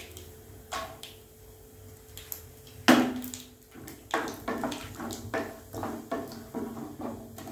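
Wooden spatula knocking and scraping against a nonstick kadai while stirring groundnuts frying in oil. A few light clicks come first, then one sharp knock with a short ring about three seconds in, followed by a run of quick taps and scrapes.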